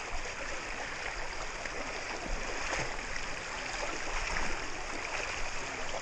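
Shallow creek water running over rocks, a steady rush, with light splashing from a person wading through it.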